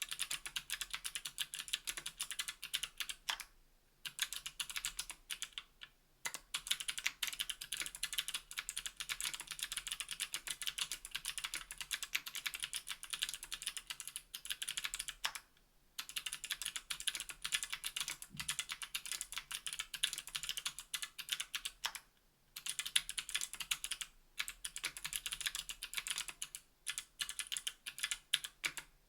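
Fast typing on a mechanical keyboard with NK_ Sherbet clickbar switches (clicky) in a KBDfans Tofu 60% aluminium case with GMK keycaps: rapid keystroke clicks in runs, broken by several short pauses.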